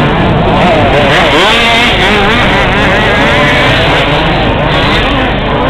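Several radio-controlled 2WD off-road buggies racing, their motors whining together in overlapping pitches that rise and fall as they accelerate and brake around the track.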